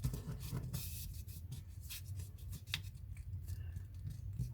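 Sheet of origami paper being turned over, creased and pressed flat by hand, with irregular soft rustles and crinkles.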